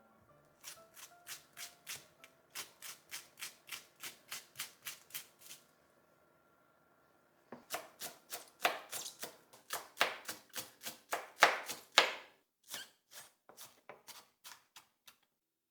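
Knife chopping on a cutting board in quick, regular strokes, about three a second. It stops for a couple of seconds around the middle, then picks up again in a louder, faster, less even run.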